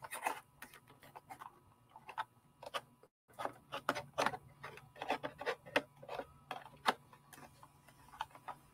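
Hard plastic model kit parts of the Razor Crest clicking and knocking irregularly as the nacelles are pressed onto the main body by hand.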